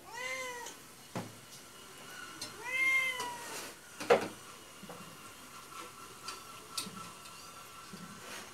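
A cat meowing twice, each call rising then falling in pitch, the second about two and a half seconds after the first. Between and after them come a couple of sharp clinks of steel dishes and a serving spoon.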